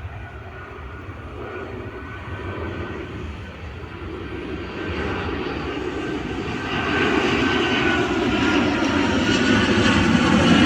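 Airbus A330-200 jet engines on landing approach, a rumble with a high whine that grows steadily louder as the airliner comes closer.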